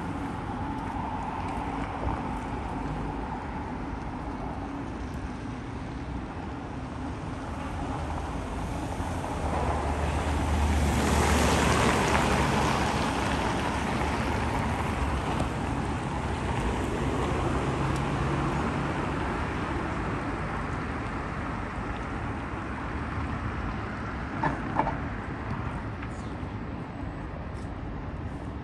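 Viking Glory cruise ferry maneuvering at close range: a steady low rumble with a rushing noise that swells for a few seconds about ten seconds in. A couple of short knocks come near the end.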